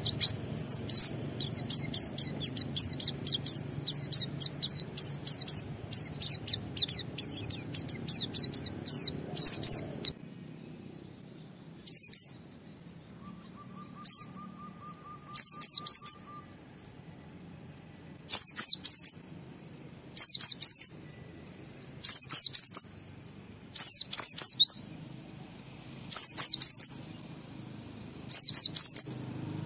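A pleci (white-eye) singing: a fast, unbroken run of high chirping notes that cuts off about ten seconds in, followed by short bursts of song about a second long, roughly every two seconds.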